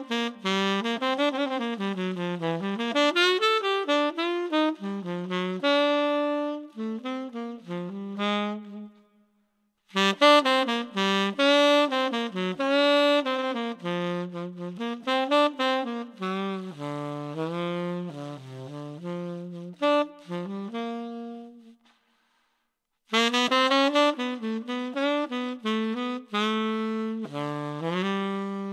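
Unaccompanied tenor saxophone playing quick runs of notes in three phrases, with two short pauses between them.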